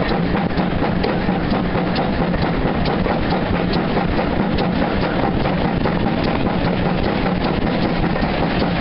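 Steam locomotive working hard at the head of a moving train, heard from an open carriage window. Its exhaust beats merge with a steady rush of wind and rail noise.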